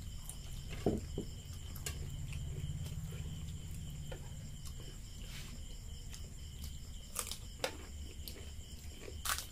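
Eating sounds: scattered sharp crunches and cracks of crisp puri shells being broken open and bitten, with chewing in between, the loudest crunch near the end. A steady low hum and a faint high whine sit underneath.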